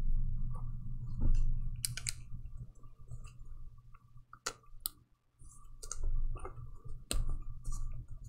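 Trading cards and a clear plastic pack wrapper handled with gloved hands: scattered sharp clicks and handling noises over a low steady hum.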